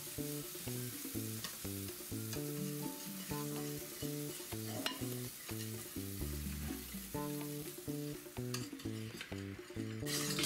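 Waffle batter sizzling on a hot stovetop waffle iron as it is spread, with a few light clicks of utensil and iron. Background music with a plucked melody plays under it.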